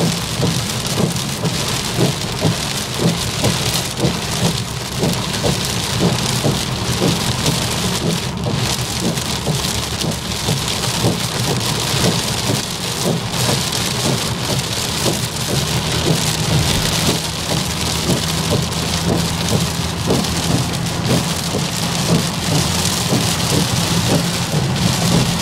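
Torrential rain drumming on a car's roof and windshield, heard from inside the cabin as a dense, steady hiss of countless drops, over a steady low drone of the car on the road.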